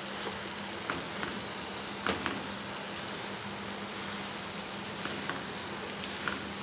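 Rice and vegetables sizzling steadily in a hot frying pan as they are stirred with a spatula, with a few light taps and scrapes of the spatula against the pan.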